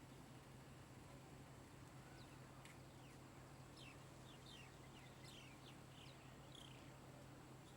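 Faint bird calls: a run of short, quick chirps falling in pitch through the middle, over a steady low hum and hiss.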